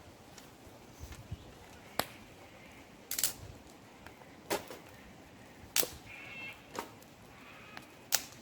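Campfire crackling: irregular sharp pops and cracks of burning wood, roughly one every second or so, over a low steady background.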